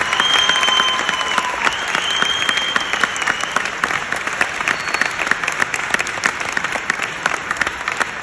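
Concert audience applauding, a dense steady clapping that thins out near the end. A long high tone is held over it twice in the first three seconds or so.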